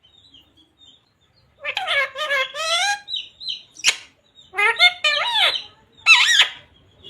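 Talking parrot mimicking speech in three short, high-pitched, squawky phrases, with a few faint chirps before them and a single sharp click partway through.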